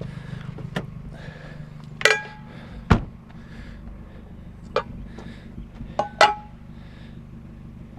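Hard objects clinking and clanking as they are handled and set down: several sharp knocks, two of them ringing briefly like struck metal, and one heavy thump about three seconds in. A steady low hum runs underneath.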